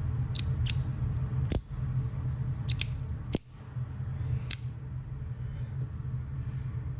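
Stainless-steel Wanwu Laser fidget slider clicking sharply as it is worked back and forth, about seven metallic clicks, some in quick pairs, over a low steady hum.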